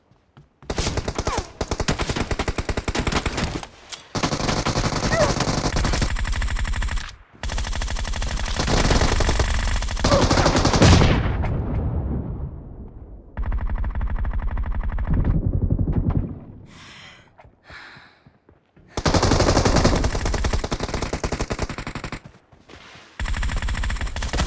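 Long bursts of rapid automatic gunfire, each lasting a few seconds, with short pauses between them.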